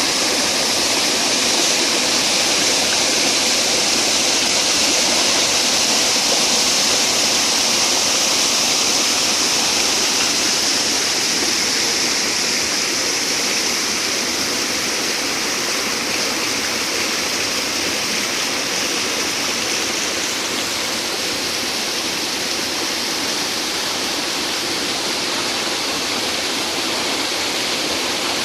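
Rushing water of a mountain valley stream: a steady, dense hiss of flowing water that eases slightly after about twelve seconds.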